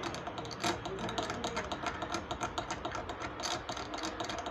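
Rapid, irregular light clicks and ticks of small hand tools working on a circuit board.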